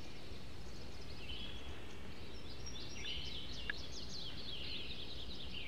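Background birdsong: several small birds chirping and twittering in quick short notes, growing busier about halfway through, over a steady low background noise.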